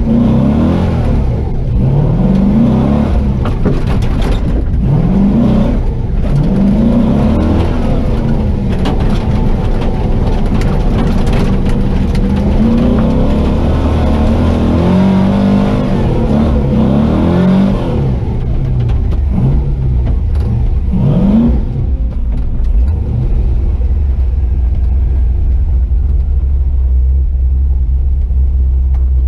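Chevy truck's swapped 6.0 L LY6 V8 revving up again and again, its pitch rising and dropping every couple of seconds, then settling into a steady low drone about 22 seconds in.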